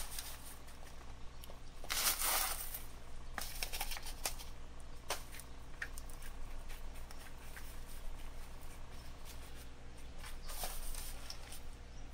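Loose potting soil being scooped with a small hand soil scoop and poured into a pot, with faint scraping, crumbling and rustling of newspaper underneath. There are scattered small clicks, and louder bursts of pouring or scraping about two seconds in and again near the end.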